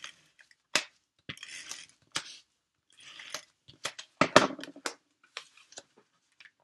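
Cardstock being handled and pressed down on a craft work mat: soft paper rustles and scrapes with scattered light clicks and taps. The loudest is a short cluster of knocks about four seconds in.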